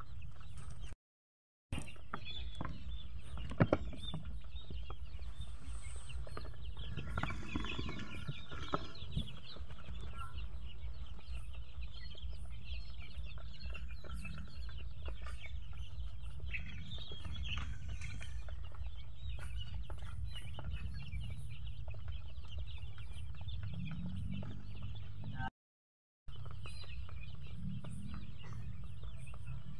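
A flock of young Rhode Island Red chickens cheeping and clucking together in a dense continuous chatter over a steady low rumble. A couple of sharp knocks come about three and a half seconds in, and the sound cuts out briefly twice.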